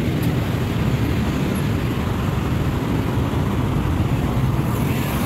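Road traffic noise from cars and motorcycles in slow, congested traffic: a steady low rumble.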